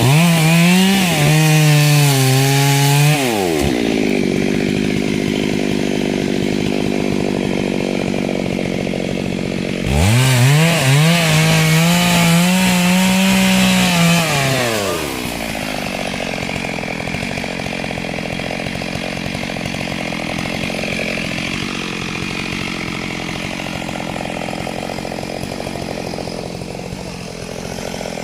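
Two-stroke chainsaw cutting wood, running at high revs, its pitch dropping about three seconds in, revving up again around ten seconds, then settling to a lower, steadier running note for the rest.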